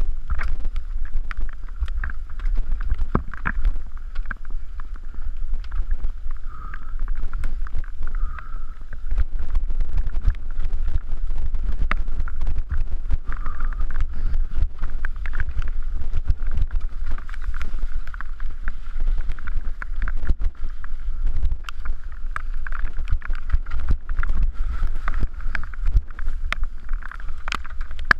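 Mountain bike descending a wet dirt trail, heard from a camera riding on it: steady wind rumble on the microphone and tyre noise over mud, broken by frequent sharp clicks and knocks as the bike rattles over rocks and ruts.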